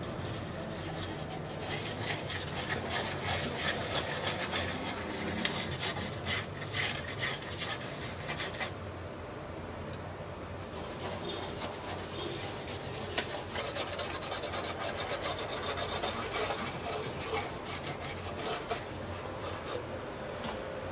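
Toothbrush scrubbing the solder side of a receiver's circuit board with rosin dissolved in thinner, a quick rasping back-and-forth scrub. It stops for a couple of seconds about nine seconds in, then carries on.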